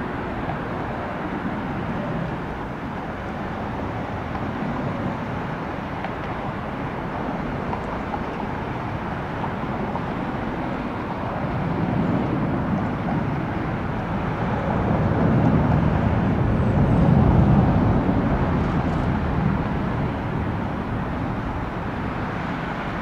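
Jet engines of a large widebody airliner passing at the runway, a steady roar that swells to its loudest a little past the middle and then eases off.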